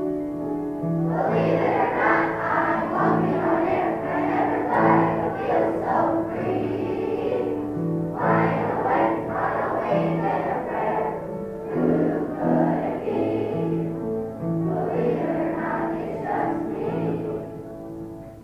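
Children's choir singing a song with instrumental accompaniment. The accompaniment plays alone for about the first second before the voices come in, and the song dies away near the end.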